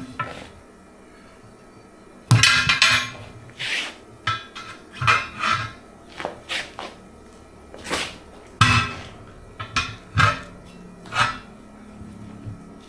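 Metal tire bar clanking and scraping against a wheel rim as a 14-ply trailer tire is levered onto the rim by hand: about a dozen irregular knocks and clanks, the loudest about two seconds in and again past the middle.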